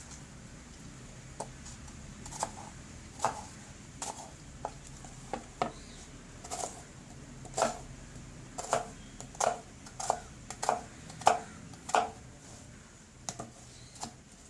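Knife chopping food on a board: irregular sharp chops, one or two a second, heavier from about six seconds in.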